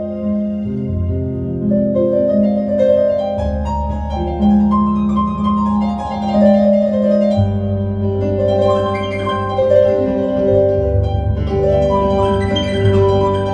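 Piano improvisation: held bass notes changing every few seconds under flowing broken chords and runs in the middle and upper range.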